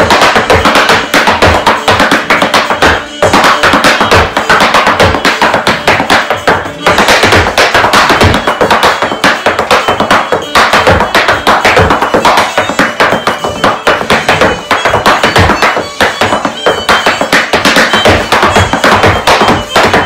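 Loud fiddle and saxophone dance music with fast, sharp percussive hard-shoe and tap beats, mixed with Irish dance hard shoes striking a floor mat.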